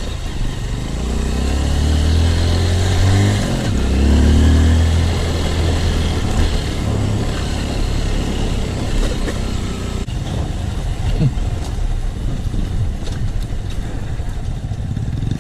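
Single-cylinder dual-sport motorcycle engine revving under load, its pitch rising and falling twice in the first five seconds, then running on more steadily.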